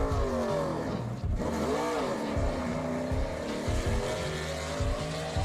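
NASCAR Xfinity stock cars' V8 engines howling past at racing speed. Each car's note rises and then falls as it goes by, once at the start and again about two seconds in.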